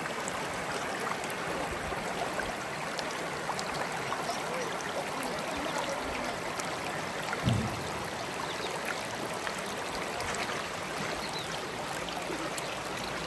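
Steady rushing of flowing water, with a brief low thump about halfway through.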